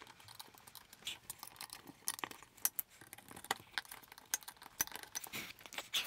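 Small irregular clicks and scrapes of a thin flat-bladed screwdriver prying at the metal retaining lugs around a dishwasher's plastic soap dispenser module, working it loose from the door panel.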